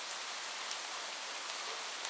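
Steady rain hissing, with a couple of sharp drop ticks standing out, one near the start and one just past a third of the way in.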